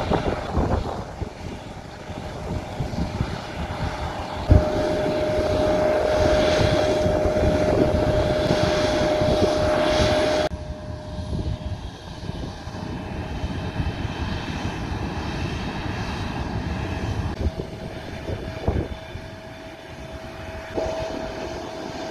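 Steady whine from an Airbus A350 jet airliner, with wind buffeting the microphone and a thump about four and a half seconds in. The sound drops and changes abruptly about ten seconds in, and the whine returns more faintly near the end.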